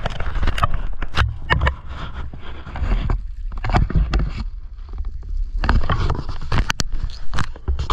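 Handling noise on a handheld action camera: irregular clicks, scrapes and rustles of fabric and gear over a steady low rumble on the microphone.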